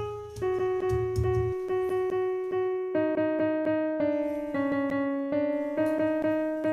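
Background music: a piano-like electric keyboard playing a melody in quick repeated notes.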